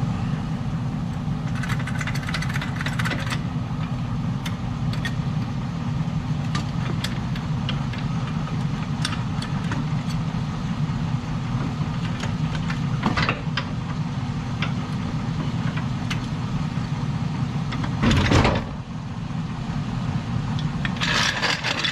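Pickup truck engine idling steadily, with scattered metal clicks and clinks from working the plow's jack and hitch pin, and one louder knock about eighteen seconds in.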